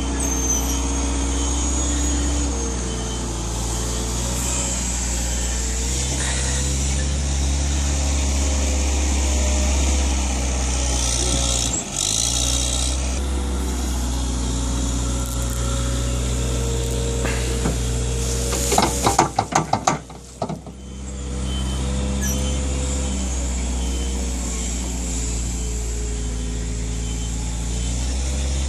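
A wood-chip loader's engine running steadily under load. About two-thirds of the way through comes a quick series of loud knocks, then the engine sound dips briefly before picking up again.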